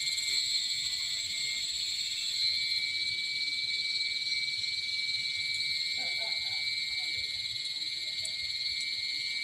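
Steady chorus of forest insects: several shrill high tones held unbroken and overlapping.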